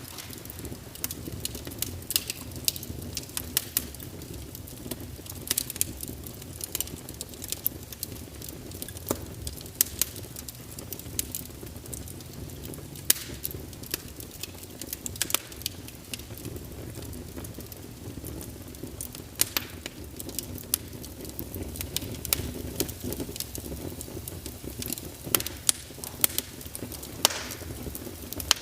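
Wood fire in a fireplace crackling, with irregular sharp pops over a low, steady rush of flames.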